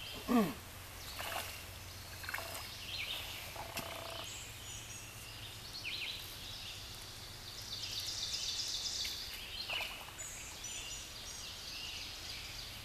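Outdoor streamside ambience: birds calling now and then over a steady low background hum, with a longer high-pitched call lasting about two seconds about eight seconds in.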